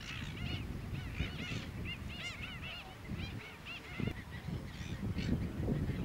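A flock of waterbirds calling: many short, harsh, arched calls overlapping several times a second, over a steady low rumble.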